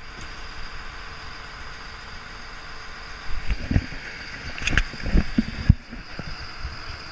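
Steady rumble and hiss of a fishing boat under way at sea, with a thin steady high tone. From about three and a half to six seconds in, knocks and rubbing as the worn camera brushes against a jacket.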